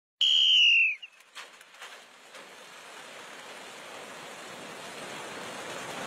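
A short high whistle-like tone, falling slightly in pitch, opens. Then come a few clicks and a steadily growing rushing flutter as a large flock of pigeons pours out of the transporter trucks and takes flight, wings beating.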